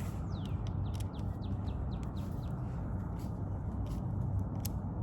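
A bird chirping in a run of quick, high, downward-sliding notes, mostly in the first half, over scattered sharp clicks of small parts being handled and a steady low hum.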